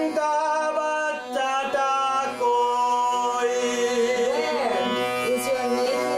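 A bowed fretted Indian string instrument of the esraj or dilruba kind plays a slow, voice-like melody. Its long held notes glide from pitch to pitch, and one note wavers up and down a little past the middle, over a steady lower drone.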